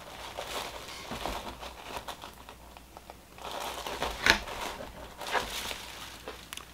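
Packaging crinkling and rustling as an item is handled and unwrapped, with a sharper crackle about four seconds in.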